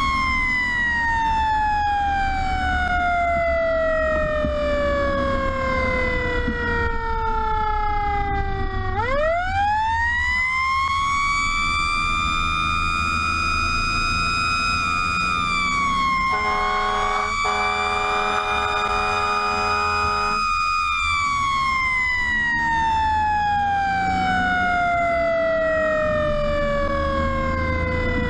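Pierce fire truck's siren on an emergency run: it falls slowly in pitch for about nine seconds, rises quickly, holds high for several seconds, then slowly falls again. Midway an air horn sounds for about four seconds with a brief break. The truck's diesel engine runs underneath.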